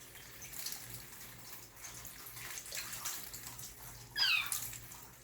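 Water splashing and trickling as a kitten is washed, then about four seconds in a single high kitten meow, falling in pitch, the loudest sound.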